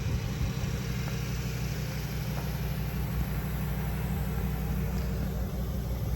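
The 2012 Ford F550's 6.8-litre V10 gasoline engine running steadily at an even speed, a constant low hum.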